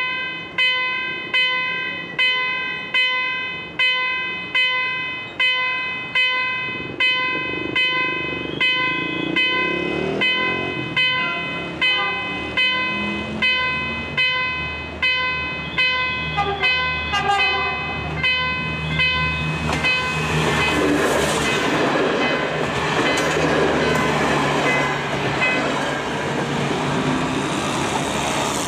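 Level-crossing warning signal chiming in an even rhythm, about three strokes every two seconds, as an electric passenger train approaches. In the last third the train's rush and rumble grow loud as it passes the crossing, while the chimes fade under it.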